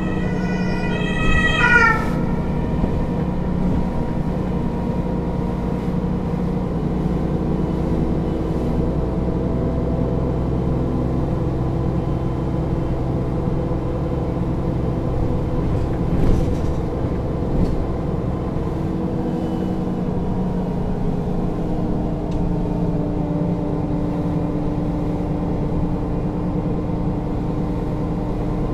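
Mercedes-Benz O 530 G Citaro articulated bus's diesel engine idling steadily at a stop. A short series of high tones steps downward in the first two seconds.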